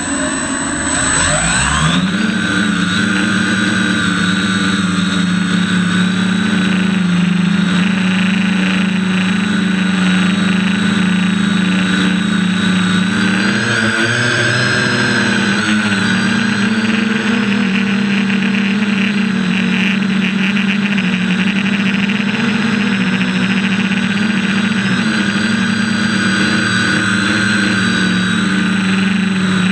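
Quadcopter's electric motors and propellers, heard from the camera on board. They spool up with a rising whine over the first couple of seconds as it lifts off, then hold a steady buzzing drone, wavering in pitch for a few seconds about halfway through as the throttle changes.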